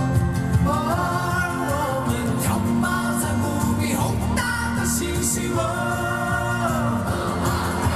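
Live pop music: a musical break between sung lines, with a steady low beat and long held melody notes that step up and down in pitch.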